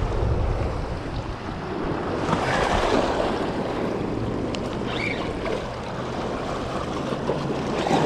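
Small waves washing and breaking over shoreline rocks, with wind buffeting the microphone; the wash swells louder about two seconds in.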